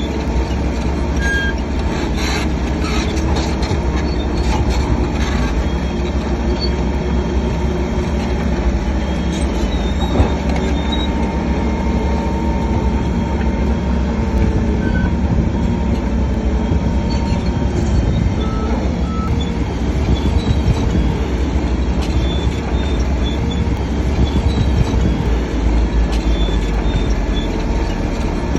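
Crawler bulldozer working: its heavy diesel engine runs steadily under load while the steel tracks squeal with a metallic sound.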